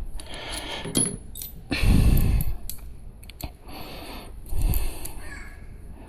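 Small metal parts clinking and clattering as they are handled, with a few short, louder dull knocks.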